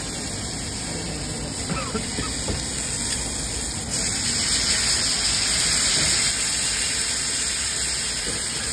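Momos and vegetables sizzling on a hot iron sizzler plate. About four seconds in, sauce is ladled onto the plate and the sizzling turns into a louder, sharper hiss.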